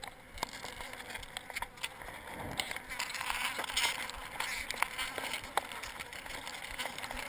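Gloved hands handling loose pieces of a cut-out wooden dome panel: scattered sharp clicks, taps and scraping.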